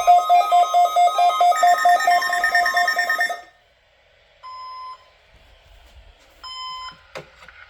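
Fast, steady electronic beeping in several tones at once, which cuts off about three and a half seconds in. Two short single beeps follow about two seconds apart.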